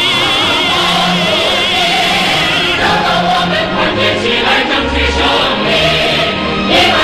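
Choir with orchestral accompaniment singing a Chinese revolutionary song in praise of Mao. A high note with wide vibrato is held for the first couple of seconds, then the full choir carries on over steady bass notes.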